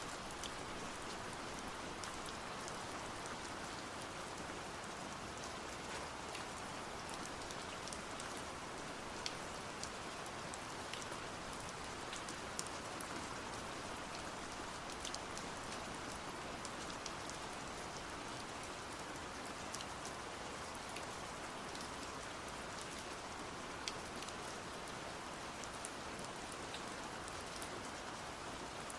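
Steady heavy rain, an even hiss with scattered sharp drop ticks throughout.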